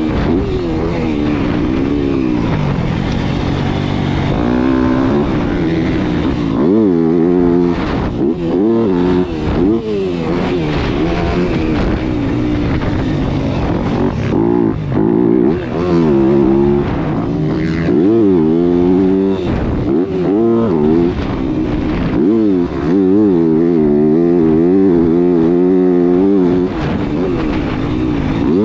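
Yamaha motocross bike's engine, heard from on board, revving hard and dropping off again and again: the pitch climbs as the rider accelerates through the gears and falls away when the throttle is shut for the corners and jumps.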